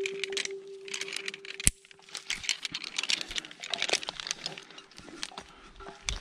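Climbing hardware clicking and clinking as a carabiner is clipped around a tree trunk and rope runs through ascenders, with crinkling and rustling throughout. The loudest is one sharp click about a second and a half in. A steady hum runs under the first half.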